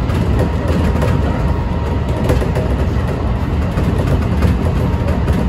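Kintetsu local electric train running at speed, heard from the driver's cab: a loud, steady rumble of wheels on the track.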